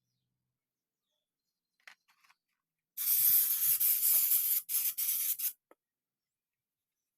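Spray hissing in a burst of about two and a half seconds, cut off briefly twice near its end, after a few faint ticks.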